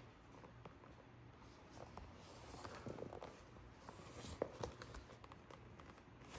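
Faint rustling and scratching with scattered light clicks of a lambskin handbag being handled, with one sharper click about four seconds in.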